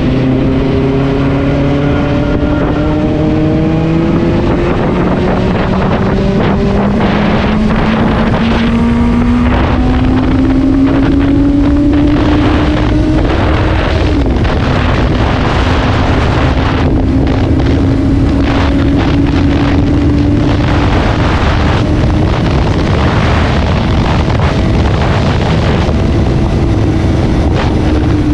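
Benelli TNT 600i inline-four engine running on the move, its pitch climbing slowly, dipping briefly about halfway, then holding steady and easing off near the end. Heavy wind noise buffets the microphone throughout.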